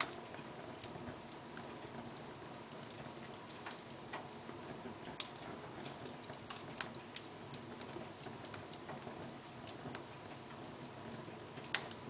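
Wood fire burning in a fireplace: irregular crackling and small pops over a soft hiss, with a sharper pop about four seconds in and another near the end.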